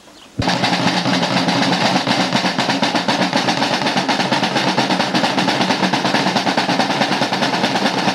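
A snare drum roll: fast, even strokes that start abruptly about half a second in and hold a steady level.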